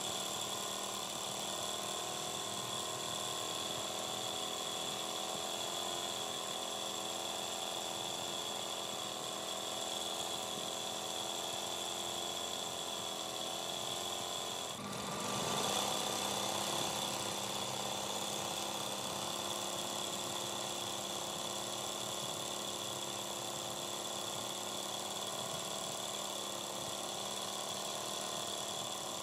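Sewing machine running steadily, its needle stitching fast through fabric held in an embroidery hoop, with the motor's pitch wavering slightly. About halfway through it briefly dips, then runs a little louder for a few seconds.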